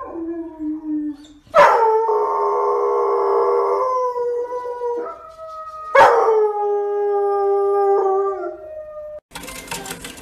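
A dog howling: two long howls of about three seconds each, the second coming about a second and a half after the first ends, with a fainter, lower howl before them.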